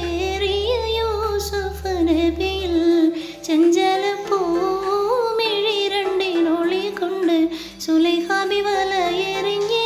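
Background music: a woman's voice singing a slow, wavering melody. A low steady drone sits underneath and stops about three seconds in.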